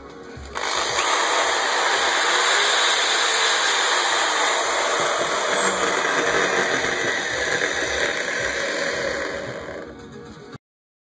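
Bosch GSB 16 RE corded impact drill running. It starts abruptly about half a second in, runs steadily for about nine seconds, then fades away near the end.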